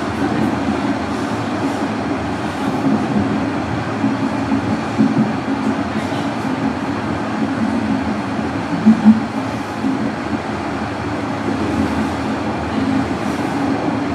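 Toronto Rocket subway car running between stations, heard from inside the car: a steady rumble of wheels and running gear on the rails. About nine seconds in come two short, louder thumps close together.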